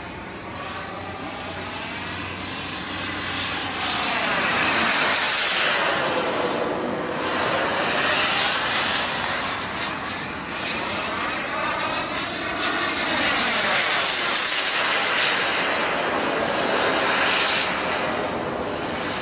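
Feibao Mirage radio-controlled turbine model jet flying past: a steady jet rush with a thin, high turbine whine. It swells and fades several times as the model makes its passes.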